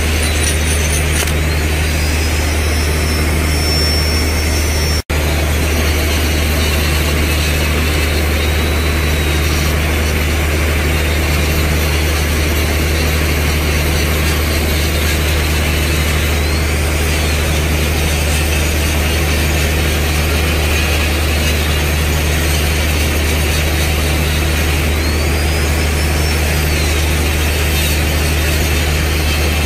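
Handheld electric grinder running continuously as it grinds the carbide buttons of a borewell button bit, a steady hum and hiss with a few brief rising-then-falling whines. The sound cuts out for an instant about five seconds in.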